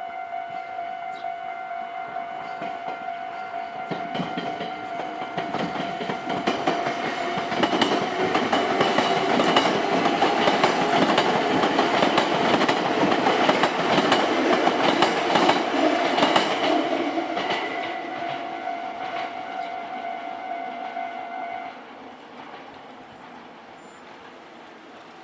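Japanese railway level-crossing alarm ringing steadily while a train passes over the crossing, its wheels clattering over the rail joints, loudest in the middle and then fading. The alarm stops a few seconds before the end, leaving a low rumble.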